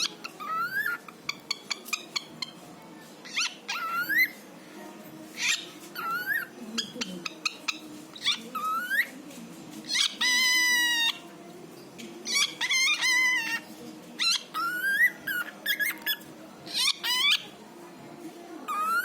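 Cockatiel whistling and chattering: short rising whistles repeated every second or two, with quick clicks between them and one longer, stronger call about ten seconds in.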